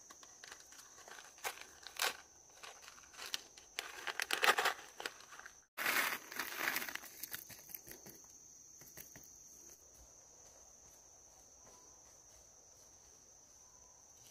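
Rustling and crinkling handling noise with scattered clicks, busiest about four to five seconds in, breaking off for an instant just before six seconds, then thinning out. A thin steady high insect trill runs underneath.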